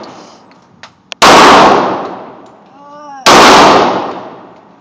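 Two 9mm pistol shots from a Glock 32 fitted with a 9mm conversion barrel, about two seconds apart, each echoing and dying away in the indoor range. A short vocal sound comes just before the second shot.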